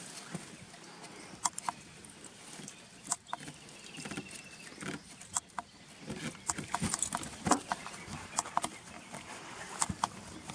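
A dog snuffling and snorting through its nose, among many scattered sharp clicks.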